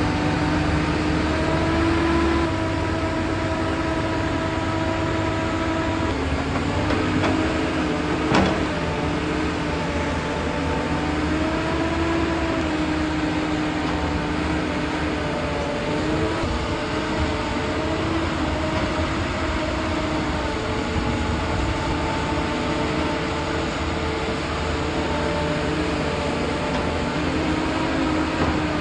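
A motor running steadily with a whine whose pitch drifts up and down, over a noisy rumble, and a single sharp click about eight seconds in.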